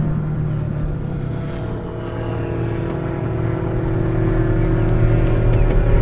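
Fishing boat's motor running steadily at trolling speed, a constant engine hum that grows a little louder in the second half.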